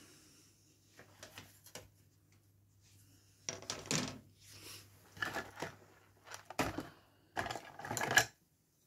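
Plastic model kit sprue and a small tool being handled and set down on a cutting mat: a run of light clattering knocks and rattles, busiest and loudest near the end, over a faint low hum.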